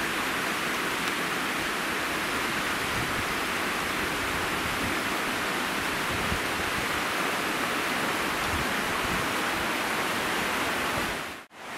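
Steady rush of river water running full, an even hiss with no let-up; it drops out abruptly for a moment near the end.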